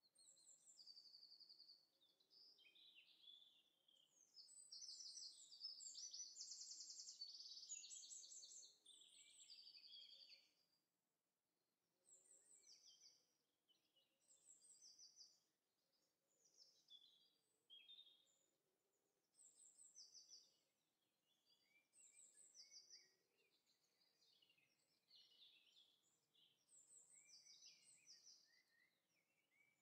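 Faint birdsong: several chirping and trilling phrases from small birds, a dense run of song in the first third, then shorter phrases every second or two.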